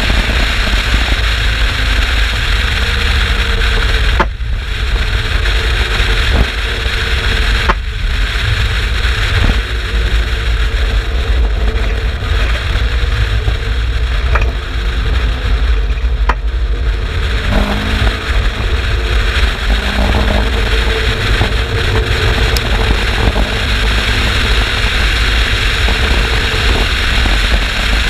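Turbocharged Mazda MX-5 BP 1.8-litre four-cylinder engine of an Exocet running hard, with a heavy low rumble and noise throughout. The sound dips briefly about four, eight and sixteen seconds in, and a short rising engine note comes through after about seventeen seconds.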